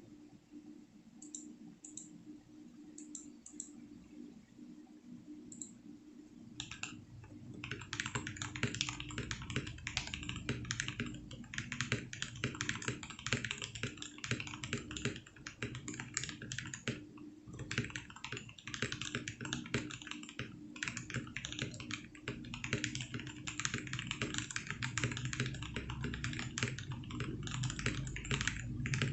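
Typing on an RK61 mechanical keyboard with Gateron Yellow linear switches (milky top, black bottom) in a foamed, tape-modded board. A few scattered keystrokes come first, then fast continuous typing from about seven seconds in.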